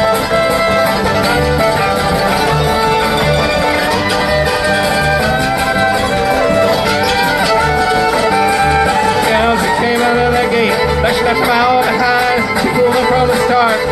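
Live bluegrass string band playing an instrumental break: the fiddle carries the melody over strummed acoustic guitar and banjo, with the upright bass keeping a steady beat.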